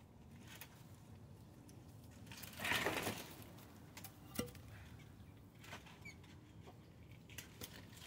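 A terracotta saucer being handled and set down on straw: a short rustling scrape about two and a half seconds in, then a sharp clink, with scattered small clicks and hens clucking faintly.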